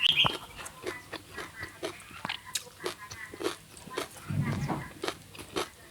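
Close-up chewing of food with irregular crisp crunching clicks, the sound of a mouthful being bitten and chewed.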